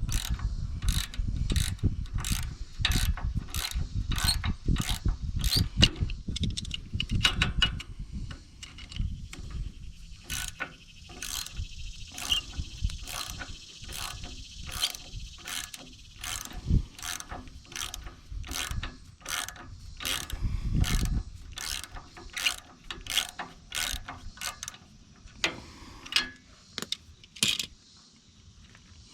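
Ratchet wrench clicking in a steady run of sharp clicks, a few a second, as the nut is worked off the old shear pin bolt on a backhoe.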